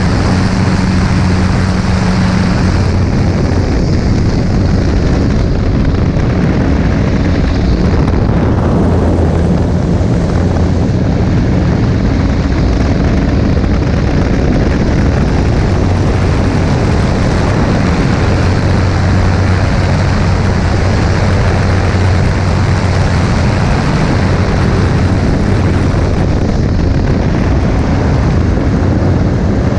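Single-seat aerobatic airplane's engine and propeller droning in flight, a low steady hum that grows and fades, under loud wind rush on a camera mounted outside the aircraft.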